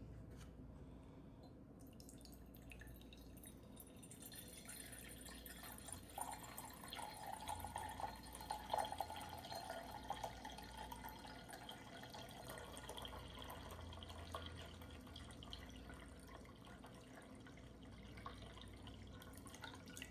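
Warm water running and splashing into a container for bread dough. It is faint at first and grows fuller from about six seconds in.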